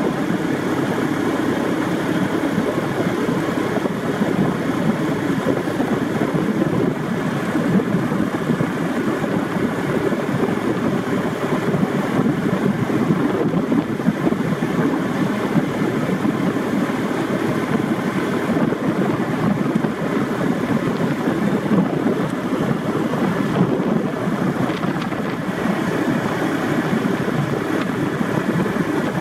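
Steady engine and road noise of a moving vehicle, heard from on board, with wind buffeting the microphone.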